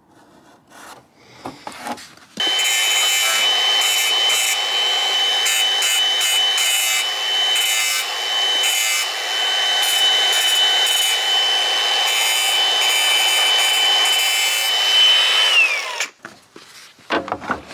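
Angle grinder trimming the wheel-arch extension to fit: it starts suddenly about two seconds in and runs for about thirteen seconds, with a steady high whine over a scraping cut. Near the end the whine falls away as it is switched off and spins down. A few light knocks come before it starts.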